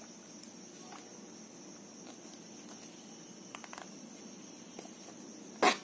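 Small faint clicks and ticks of a metal zipper slider being worked onto the end of a zipper chain by hand, with one sharp, louder click near the end. A steady faint high whine runs underneath.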